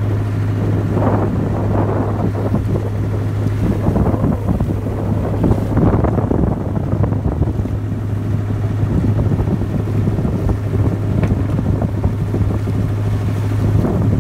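Motorboat under way: the engine's steady low drone, with wind buffeting the microphone in gusts and water rushing past the hull.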